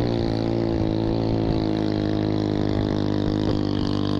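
Small petrol minibike engine running steadily under way, its note holding nearly level and easing down slightly.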